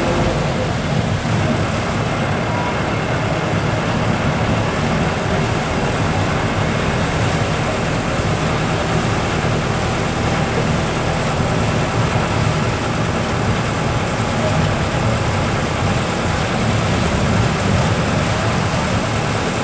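Steady low noise of a moving vehicle's engine and tyres on a rain-wet road.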